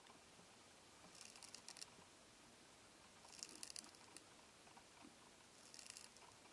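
Sinistral land snail (Euhadra quaesita) rasping the surface of a Schizophragma hydrangeoides leaf with its radula, heard as a faint, fine scraping crackle. It comes in three short strokes about two seconds apart.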